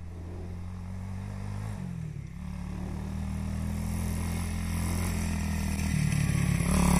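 Pit bike's small single-cylinder engine running at a distance and growing steadily louder as the bike rides closer. Its note shifts about two seconds in and rises near the end.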